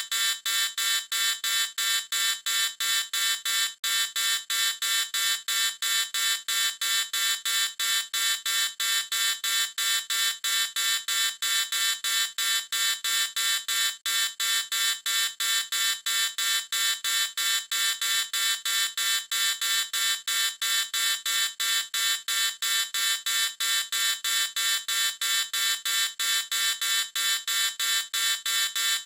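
Electronic alarm beeping in a fast, steady stream of short high-pitched beeps, about three a second, unchanging throughout.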